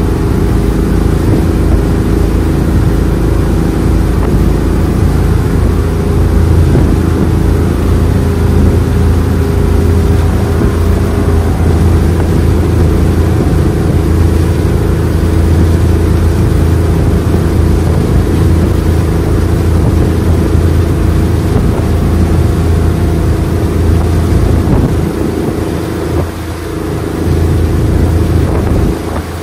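Power boat engine running steadily with a strong low drone, the level dipping briefly near the end.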